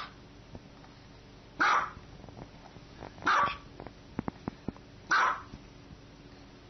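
Small white dog giving three short, sharp barks, spaced evenly a little under two seconds apart, with a few faint ticks between the second and third.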